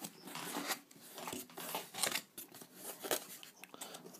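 A radio's retail box and its packing being handled and opened by hand: irregular rustling, scraping and crinkling of paper and plastic packaging.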